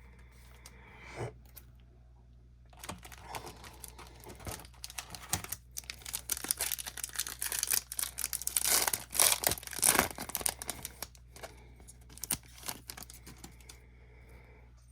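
Foil wrapper of a Topps Chrome trading card pack being torn open and crinkled, a dense irregular crackle that starts about three seconds in, is loudest near the two-thirds mark and dies away after about eleven seconds.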